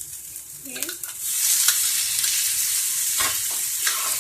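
Chopped tomatoes going into a pan of spiced onion and grated-potato masala frying in mustard oil: a loud sizzle breaks out about a second in and carries on, with a couple of spoon knocks against the pan near the end.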